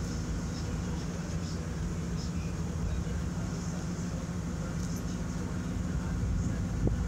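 Steady low mechanical hum, with a single short knock near the end.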